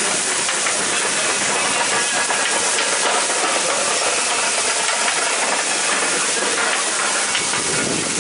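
Food sizzling on a hot grill: a steady hiss with a faint crackle.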